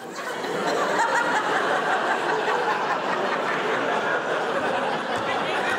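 Theatre audience laughing steadily throughout, a dense crowd laugh.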